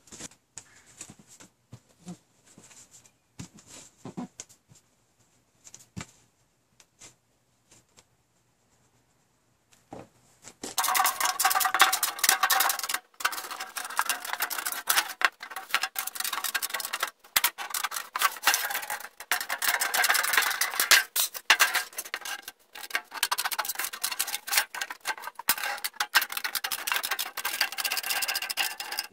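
Tin snips cutting through the thin sheet-metal wall of a popcorn tin: a loud, dense run of sharp metallic snips and crinkling with short pauses, starting about ten seconds in. Before that, only a few light knocks as the tin and its lid are handled.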